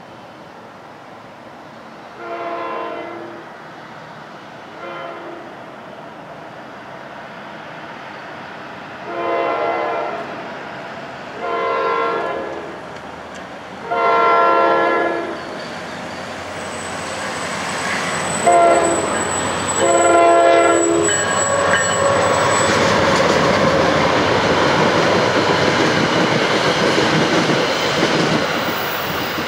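A passenger train's air horn sounds a series of blasts for the grade crossing: two short ones, three long ones, then a short and a long. From about halfway through, the noise of the approaching train builds and stays loud to the end.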